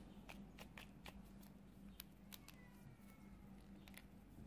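Faint, irregular clicks of a flexible drill-shaft extension being bent and handled, its plastic segments and metal ends knocking softly.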